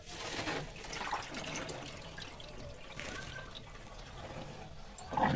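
Tap water running and splashing into a steel bowl of sago pearls as they are rinsed in a sink. A brief louder sound comes near the end.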